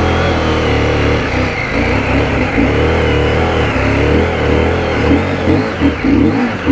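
Adventure motorcycle engine revving unevenly, its pitch wavering up and down and surging in short spurts near the end, as the bike struggles for grip on a slippery mud track.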